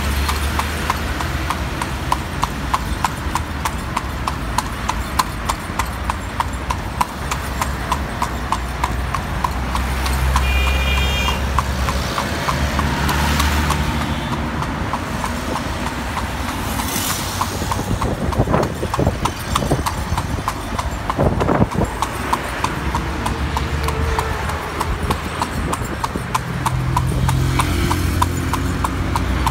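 A carriage horse's hooves clip-clopping on a paved road in a steady, even rhythm as it pulls a horse-drawn carriage, over a low rumble of wheels and traffic.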